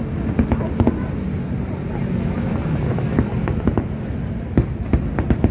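Fireworks shells bursting in sharp, scattered bangs, several in quick succession near the end, over the steady murmur of a crowd of spectators.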